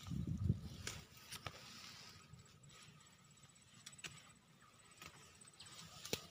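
Faint rustling of chili plants and scattered clicks of footsteps and phone handling as someone walks through the field, with a low rumble in the first half-second.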